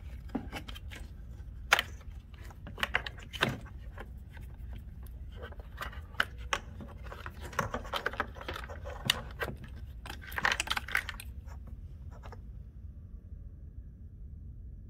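Wiring harness and its plastic connectors rattling and scraping against the plastic handle chassis of an EGO mower as the harness is pulled out, with scattered sharp clicks. The handling stops about three quarters of the way through, leaving a low hum.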